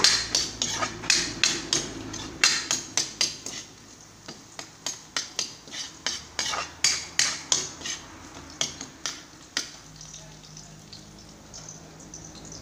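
A spatula scraping and knocking against a metal wok in quick strokes, about three a second, as ginger and garlic are stir-fried in oil. The strokes stop about ten seconds in.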